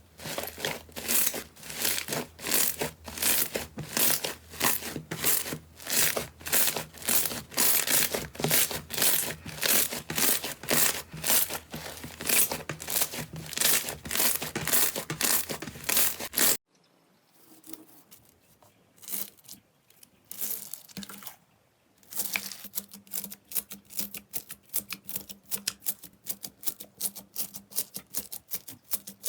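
Slime being squeezed and kneaded close to the microphone, with rhythmic crackling and popping about two to three times a second. It cuts off abruptly about two-thirds of the way through, there are a few seconds of faint handling, and then another batch starts up with the same rhythmic crackling.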